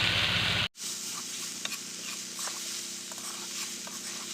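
Cabbage and potatoes frying in a pan: a steady sizzle with small scattered clicks of stirring. Less than a second in, a louder rushing noise with a low hum cuts off abruptly before the sizzle begins.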